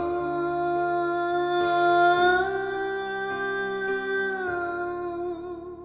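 A woman's voice holding one long wordless note over sustained backing chords. The note steps up slightly about two seconds in, drops back with a waver about a second before the end, and the music then starts to fade.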